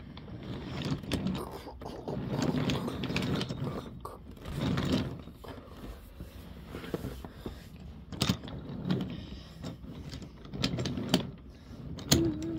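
Toy train cars rolling along a wooden track, their wheels clattering, with irregular clicks and knocks. A short steady hum comes near the end.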